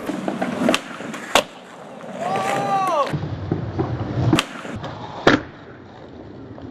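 Skateboard wheels rolling, with four sharp clacks of the board popping and landing. The loudest clack comes about five seconds in.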